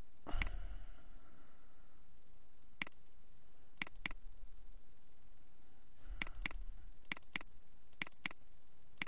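Computer mouse clicking, mostly as double-clicks: pairs of sharp clicks a fraction of a second apart, repeated about every second or so, over a steady low hiss.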